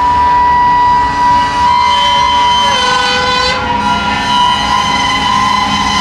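Freight car wheels squealing on the rails as covered hopper cars roll slowly through the yard: several steady, high squeal tones over a low rumble, one of them sliding down in pitch about three seconds in.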